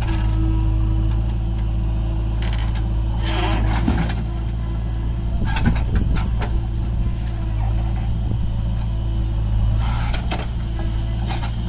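Diesel engines of an Eicher 551 tractor and a JCB backhoe loader running steadily, with short bursts of scraping and clatter as the backhoe bucket digs into and lifts soil several times.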